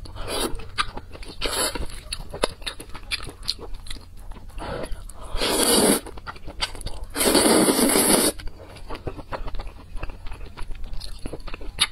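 Close-miked eating sounds from a person eating saucy noodles: wet chewing and small mouth clicks throughout, with two loud slurps of noodles about five and seven seconds in.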